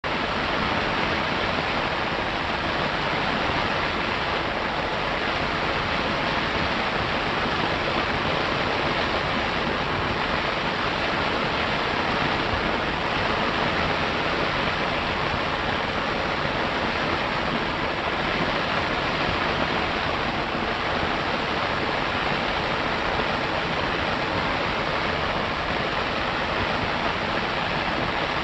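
Steady hiss and rumble of an old optical film soundtrack, with no music, voices or effects over it.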